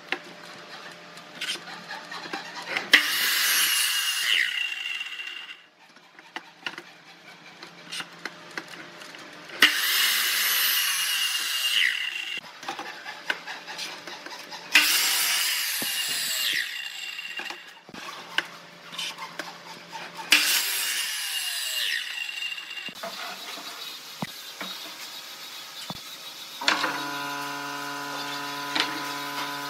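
Sliding compound mitre saw cutting through pine boards four times, each cut lasting two to three seconds, with the blade winding down in a falling whine after each cut. Clacks of wood and the saw being handled come between the cuts, and music comes in near the end.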